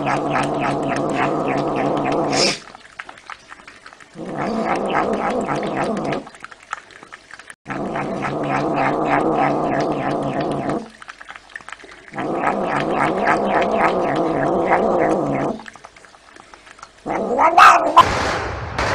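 Domestic cat growling with its head in its food bowl: four long, low growls with short pauses between them. Near the end a different, sharper sound cuts in.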